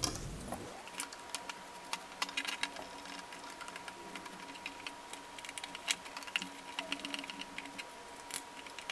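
Light, irregular clicks and taps of small metal screws and a hex driver working on carbon-fiber frame parts as the last screws go in. Under them a faint steady whine rises about half a second in, holds, and falls away at the end.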